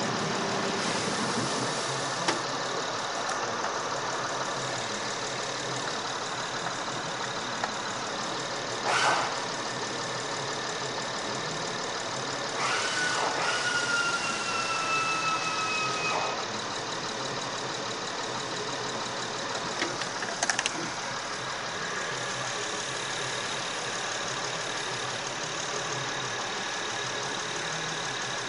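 Car engine idling steadily, with a few sharp clicks and a slightly falling high tone for about three seconds near the middle.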